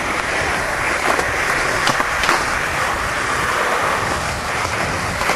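Skateboard wheels rolling over concrete, a steady rough rolling noise heard up close, with a few light clicks scattered through it.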